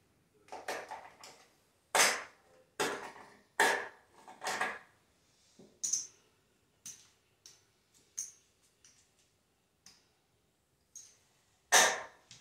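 Casino chips clacking as they are picked up, stacked and set down on a craps layout: a string of sharp, irregular clicks, several loud ones in the first few seconds and another near the end.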